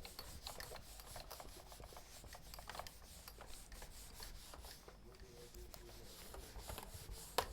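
Faint, scratchy strokes of handwriting, a writing tip rubbing across a surface in many short strokes, with one sharp click near the end.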